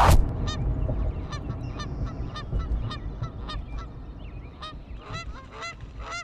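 A flock of geese honking, two or three short calls a second, over a low rumble that fades. It opens with a short loud whoosh.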